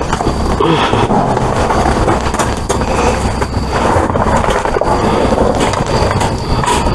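Rummaging through dumpster trash: a black wire pet cage rattling and scraping against plastic bags and cardboard, with many small clatters and knocks.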